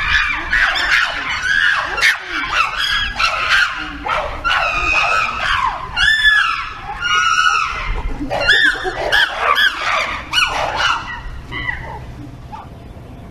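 A group of chimpanzees screaming in a fight over food, many shrill, arching calls overlapping one another. The screaming breaks off abruptly about eleven seconds in, as the alpha male comes out and the group falls quiet.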